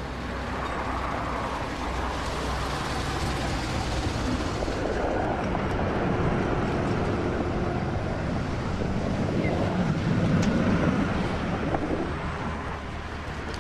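Polski Fiat 126p, with its small air-cooled two-cylinder engine, driving on a snowy street: engine running with road noise, gradually louder to about ten or eleven seconds in, then easing off near the end as the car pulls up.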